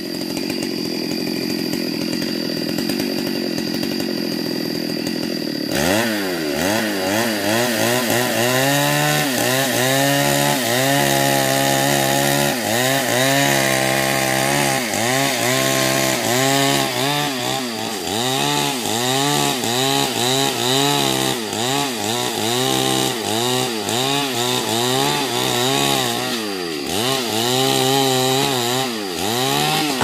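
Stihl two-stroke chainsaw cutting into a tree trunk. For the first six seconds it runs with a steady drone. Then the engine note dips and climbs back over and over as the chain bites into the wood and is throttled again.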